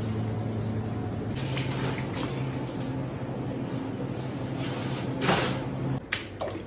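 A large monkfish being slid and handled on crushed ice on a prep table: short scraping, crunching sounds, the loudest about five seconds in. Under them runs a steady kitchen hum that cuts off about a second before the end.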